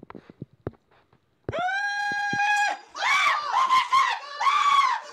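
A few faint taps, then a man sings a loud steady high note into a wine glass for about a second, followed by excited yelling and screaming.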